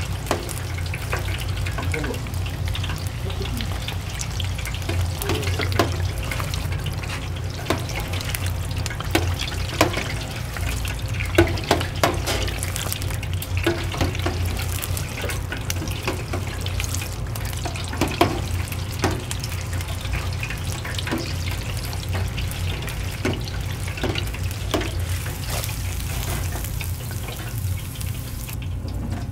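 Restaurant kitchen sounds while shrimp dishes are cooked: a steady low hum with many scattered clinks and knocks of utensils and cookware.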